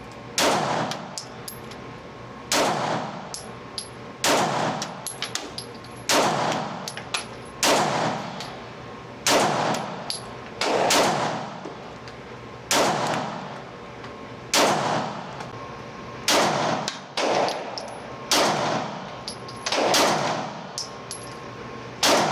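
Glock P80 9mm pistol fired in slow, steady single shots, about fourteen of them a second and a half to two seconds apart, each ringing off the concrete walls of an indoor range. Light metallic clinks follow the shots as spent brass casings land.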